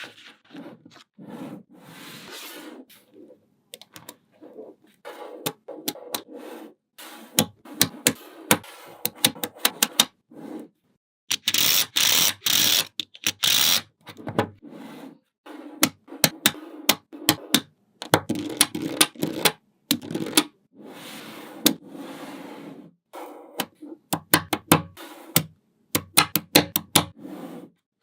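Small magnetic balls clicking as they snap together, with stretches of rattling and rolling between the clicks. The longest, loudest rattle comes about halfway through.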